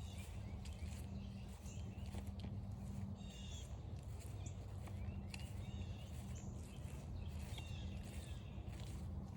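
Songbirds chirping, short repeated calls every second or so, over a steady low rumble, with footsteps on a forest trail.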